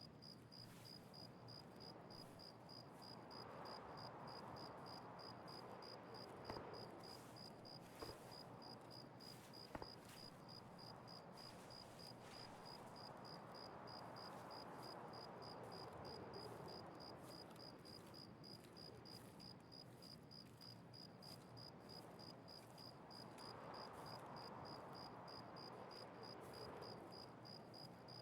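Faint insect chirping: a high note repeating evenly about twice a second, over low background noise with three soft clicks.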